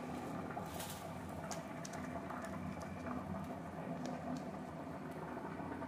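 A thin plastic carrier bag rustling and crinkling as food scraps are put into it, with a few faint light clicks over a steady low background hum.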